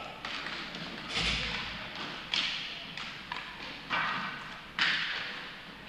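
Inline hockey play: a series of sharp hits from sticks, puck and boards, about one a second, each ringing briefly in the rink, the loudest near the end.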